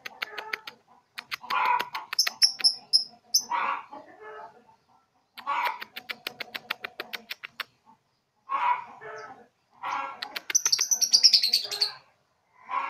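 A young lovebird, about three months old, practising its 'ngekek' chatter: several bouts of rapid clicking runs mixed with scratchy chatter and short high chirps, separated by brief pauses.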